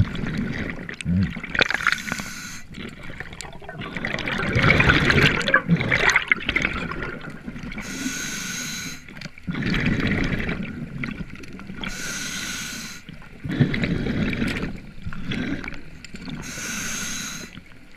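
Scuba diver breathing through a regulator underwater: hissing inhales with a faint steady whistle about every four to five seconds, alternating with louder bubbling exhales.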